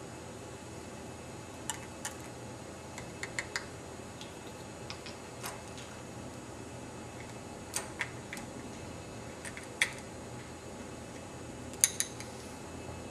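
Small plastic Lego parts clicking and tapping as a Lego trash cart is handled and hooked onto the model garbage truck's cart tipper: scattered sharp clicks, a quick run of three about three seconds in and the loudest double click near the end, over a steady hiss.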